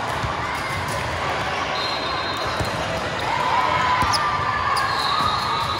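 Volleyball being played on a gym court: the ball is struck and bounces, and sneakers squeak on the floor, over a steady hum of spectators' chatter.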